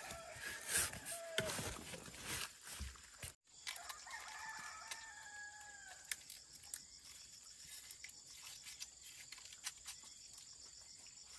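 A rooster crows once, a call about two seconds long that falls away at the end. It is preceded by a few sharp knocks and followed by scattered small clicks.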